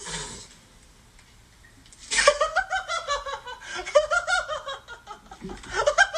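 A person laughing in repeated giggling bursts, starting about two seconds in after a near-quiet pause.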